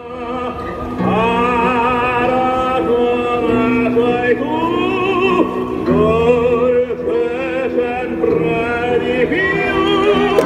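Live band on an amplified stage with a singer holding long notes with vibrato over a steady bass line. The music changes abruptly near the end.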